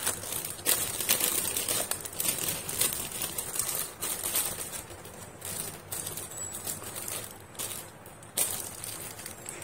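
Clear plastic packaging crinkling and rustling as bagged craft supplies, a stack of pink craft sheets among them, are picked up and moved by hand. The rustles are irregular, with a quieter spell about seven seconds in before they pick up again.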